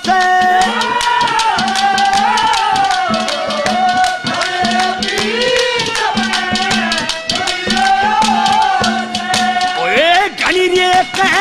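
Live Haryanvi ragni folk-music accompaniment: a bending melody line over fast, dense rattling percussion clicks. About ten seconds in, a male voice slides up into a sung phrase.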